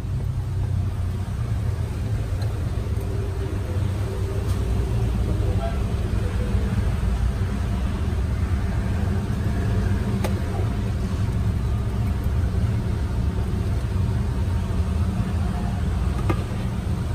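Steady low engine rumble, with a few faint clicks.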